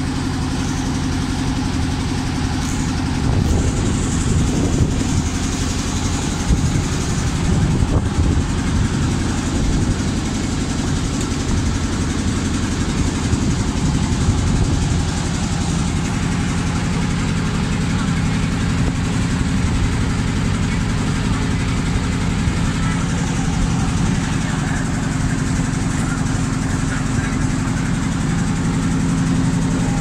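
A boat's engine running steadily, heard from on board: an even drone with a low hum, with people talking over it.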